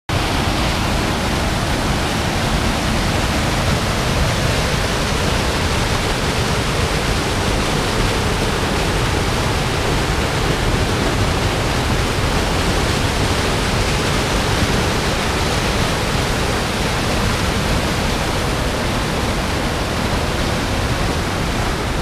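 Creek water pouring over small waterfalls and mossy rock ledges: a steady, full rush of falling water.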